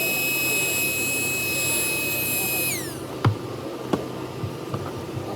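High, steady whine of a small electric blower that winds down and stops under three seconds in, followed by two sharp clicks about half a second apart.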